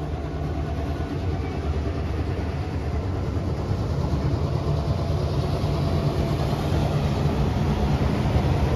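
Two NSW 42 class diesel-electric locomotives, each with an EMD 16-567C two-stroke V16 engine, running with a deep, steady rumble as they cross a steel girder bridge overhead, the sound slowly growing louder.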